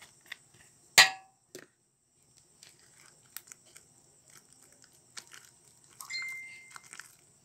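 Hand squishing and kneading sticky slime with dishwashing liquid just poured in, in a plastic tub: scattered small clicks and pops, with one sharp knock about a second in and a brief high squeak near the end.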